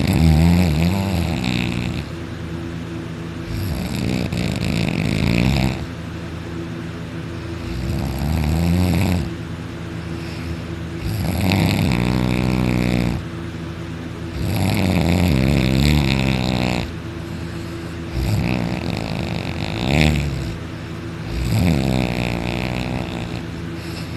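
A person snoring heavily in deep sleep: seven rattling snoring breaths, one every three to four seconds, each lasting one to two seconds. A steady low hum runs underneath.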